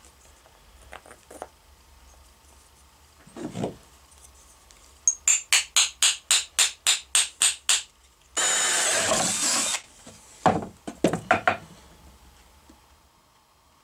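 A blade scraping the edge of a small MDF knob by hand in about a dozen quick strokes, about four a second. Then comes one longer scrape of about a second and a half, and a few more short strokes, the edges being cleaned up after routing.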